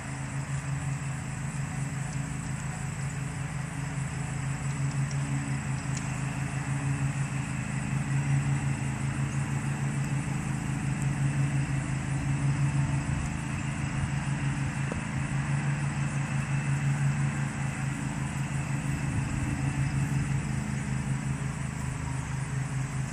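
A motor running steadily at idle, giving a low hum with a fast, even pulse that swells and eases slightly in loudness, under a thin steady high whine.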